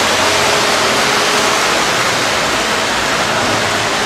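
Lionel O gauge model trains and animated accessories running on the layout: a steady rushing noise with a faint hum underneath.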